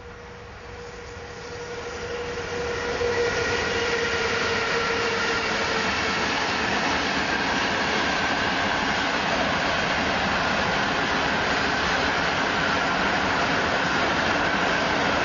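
Electric-hauled container freight train approaching and passing close by. It grows louder over the first three seconds, with a steady whine that fades out within the first six. After that comes the steady noise of the wagons rolling past.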